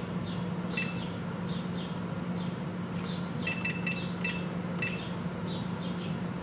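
Thermomix control panel beeping as its selector dial and buttons are set: a single short beep about a second in, then a quick run of five short beeps a few seconds later, over a steady low hum.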